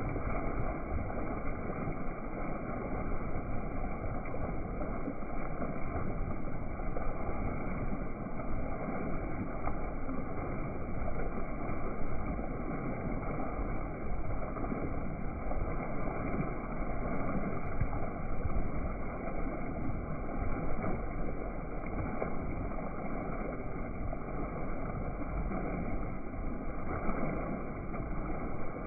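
Steady rushing noise of a boat under way, with water washing past the hull.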